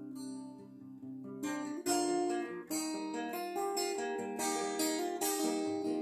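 Acoustic guitar played solo: a chord rings and fades, then strumming picks up again about a second and a half in with a run of chords struck every half second or so.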